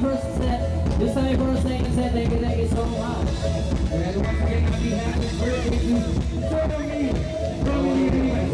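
Amplified music with singing and a steady low bass line, played loud over a sound system.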